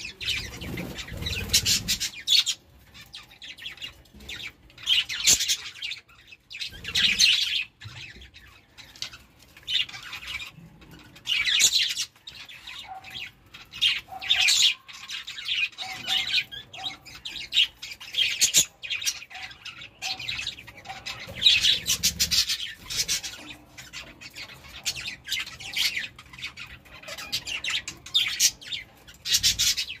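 Several budgerigars chirping and chattering in frequent, irregular bursts of high-pitched calls.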